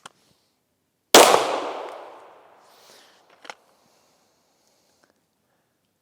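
A single pistol shot about a second in, its echo fading away over a second or so, followed by a sharp click a couple of seconds later.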